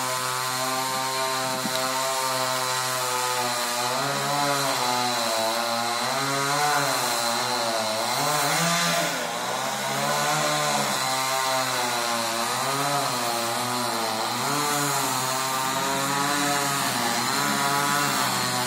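Chainsaw running at high revs, cutting into a palm trunk. It runs steady at first, then from about four seconds in its pitch dips and recovers roughly once a second as the chain bites.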